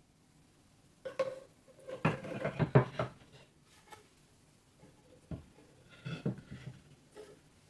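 Corrugated plastic pop tubes being handled and set onto a wooden marble-run ramp: short clatters and knocks of plastic against wood, a burst from about one to three seconds in, a single knock later, and another short burst near the end.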